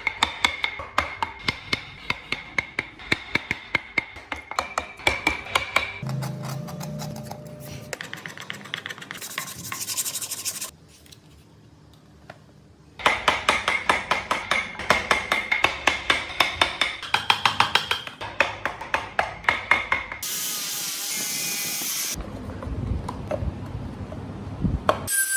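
Hand tool scraping on wood in quick, regular back-and-forth strokes, like filing or rasping, with a short quiet break in the middle and a stretch of hiss near the end.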